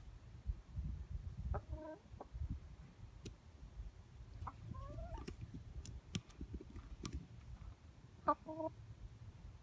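Domestic hen clucking: a few short clucks spaced a few seconds apart, over a low rumble of handling noise.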